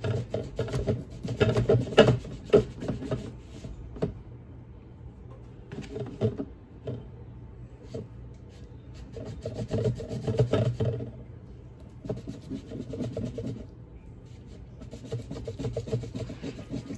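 Knife sawing through cooked brisket in several bursts of quick back-and-forth strokes, with short pauses between them.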